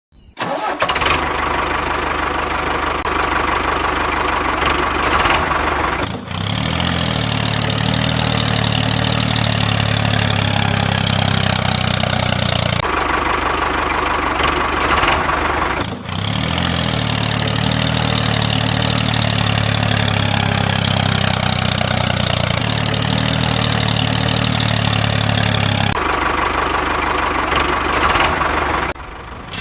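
Engine running steadily at idle, in several stretches that cut off and restart abruptly, with a heavier low beat in some stretches.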